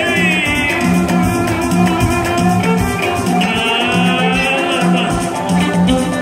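Live Moroccan chaabi band music from keyboard and drum kit: a bass line pulsing on a steady beat, with a high melody gliding and bending above it.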